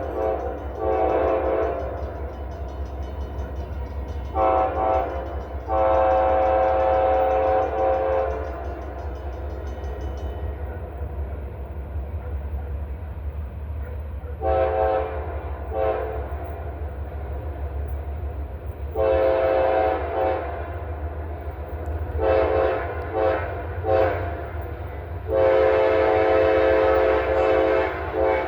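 Diesel freight locomotive's air horn sounding about ten blasts of varied length, some short and some held for two to three seconds, with the longest near the end. Under it runs the steady low rumble of the train rolling by.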